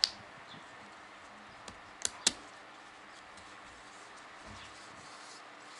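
Piston ring being worked onto a piston by hand, giving small sharp metallic clicks. There is a loud click at the start, a faint one a little before two seconds in, then two sharp clicks close together just after.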